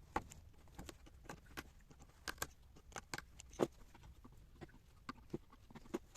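A run of irregular light clicks and taps of small hard objects, the loudest about three and a half seconds in.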